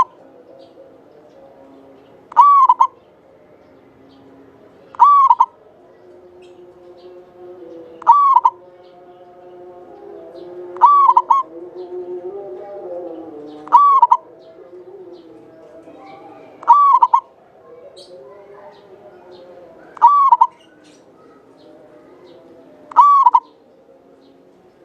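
Local Javanese zebra dove (perkutut) singing: a short, clear cooing phrase repeated at a steady pace about every three seconds, nine times. A fainter low warbling of other sound runs underneath, rising for a few seconds in the middle.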